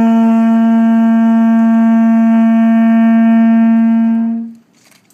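Hawaiian pū (conch shell trumpet) blown in one long, steady note, dying away about four and a half seconds in.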